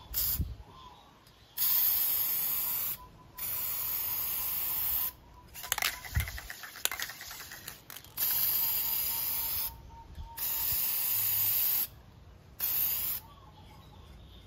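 Aerosol can of air filter oil spraying onto a foam air filter in about six bursts of hiss, most one to two seconds long. Around the middle the can is shaken, with a short run of quick clicks.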